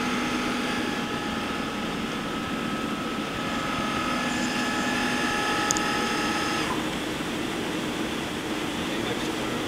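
Doosan Puma 240MC CNC lathe's live-tool spindle drive running at 2,500 RPM, a steady whine of several tones that cuts off about two-thirds of the way through, leaving the machine's steady running hum.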